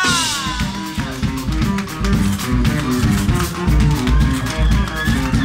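Live punk band playing loud, with guitar, bass and drum kit driving a steady rhythm. A falling slide in pitch comes right at the start.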